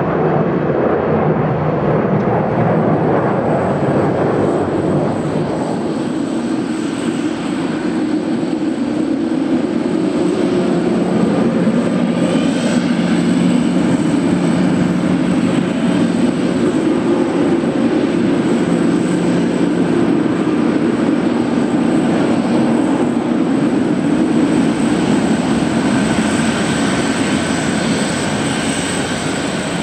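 Jet airliner engine sound running steadily, a continuous rumble with a thin high whine, played as sound effect for the model aircraft taxiing at a miniature airport.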